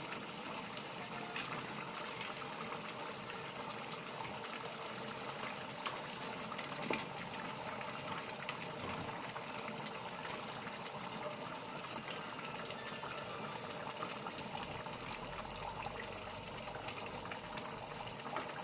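Large pot of tomato-mint masala with chicken leg pieces just added, cooking with a steady sizzle and bubble, with a few faint clicks.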